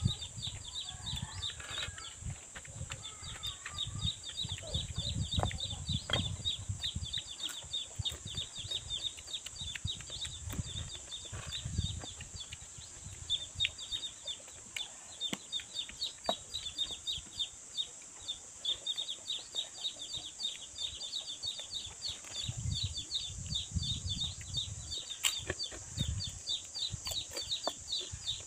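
Outdoor rural ambience: a dense, rapid high chirping of birds with chickens clucking, over a steady high-pitched hiss. Soft, low chewing sounds from a man eating rice by hand come and go.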